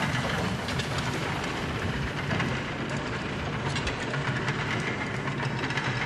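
Runaway mine train sound effect: a steady rumble with rapid clattering of wheels on rails.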